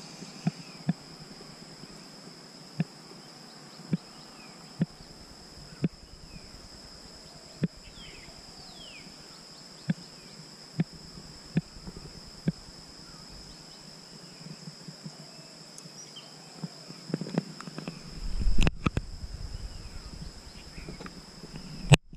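Steady high chirring of insects such as crickets, broken by sharp clicks every second or so and a few faint falling chirps. A short rumble with a loud knock comes about three seconds before the end, and another sharp knock comes at the very end.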